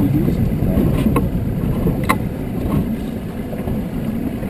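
Steady low noise aboard a small fishing boat at sea, with two short sharp clicks about one and two seconds in.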